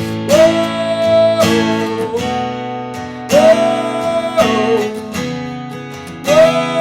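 Martin GPCPA4 acoustic guitar strummed in a looped rhythm. A wordless sung note slides up and is held for about a second three times, about every three seconds, with each entry the loudest point.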